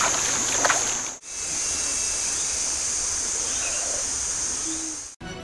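Forest creek ambience: water running over rocks under a steady high-pitched buzz, with a few splashes in the first second. The sound drops out briefly about a second in, then the same hiss and buzz carry on until intro music begins at the very end.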